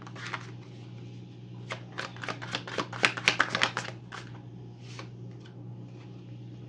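Tarot cards being shuffled by hand: a quick, dense run of card snaps and flicks between about two and four seconds in, then a couple of single taps, over a steady low hum.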